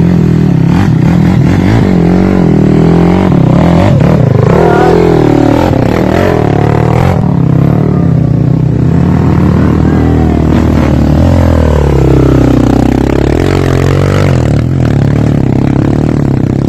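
Dirt bike engine revving up and down repeatedly as the rider climbs the trail, over a steady low engine drone.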